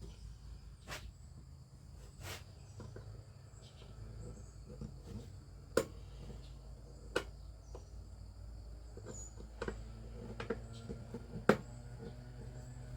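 Scattered light taps and clicks, with a few sharper knocks, from hand work on an old picture frame, over a steady low hum.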